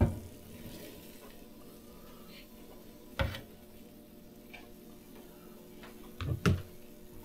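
A few sharp knocks: one at the start, one about three seconds in, and a quick pair near the end, over a faint steady hum.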